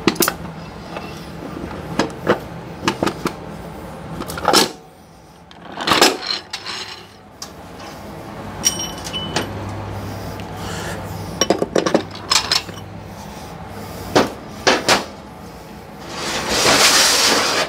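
Metal parts of a Powerglide automatic transmission clinking and knocking as they are handled and set into the aluminium case: scattered sharp knocks, and a second-long scraping rattle near the end.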